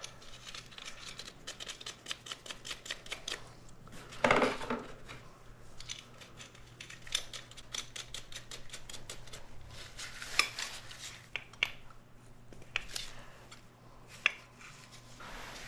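Light metallic clinks and clicks of a Model A Ford connecting rod, rod cap and nuts being handled and fitted back together after the piston is pulled. There is a louder knock about four seconds in and a few sharp single clicks later.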